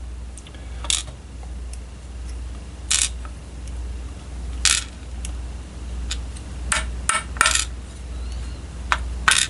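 Small metal lock parts being set down one at a time on a hard surface: about ten light metallic clicks and clinks at irregular intervals, with a quick cluster a little after seven seconds in.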